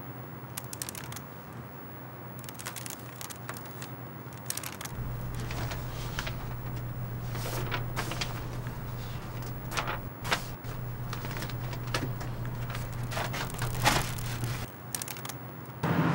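Stack of printed photographs being handled and flipped through: short, irregular paper rustles and slaps. A low steady hum comes in about five seconds in and stops near the end.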